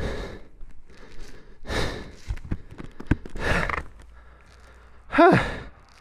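A person breathing heavily twice, then a groan that falls in pitch about five seconds in: the pained sounds of a motorcycle rider who has just crashed and is hurt.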